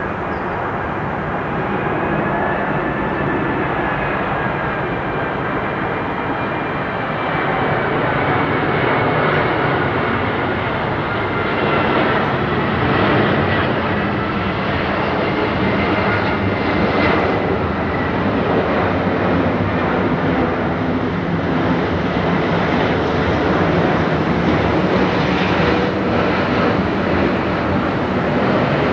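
Airbus A380's four Rolls-Royce Trent 900 turbofans on approach with the landing gear down: a loud, steady rush of jet noise with high whining tones that slide slowly down in pitch, growing louder a few seconds in as the jet passes low overhead.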